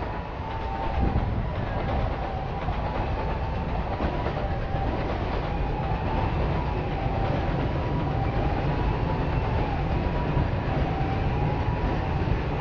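Train running past with a steady heavy rumble and a faint whine that wavers in pitch.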